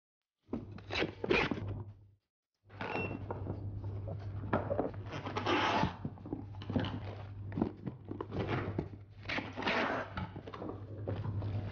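Packing tape being pulled off handheld tape-gun dispensers and pressed onto cardboard boxes as they are sealed: a quick run of rasping tape pulls and cardboard knocks over a low steady hum.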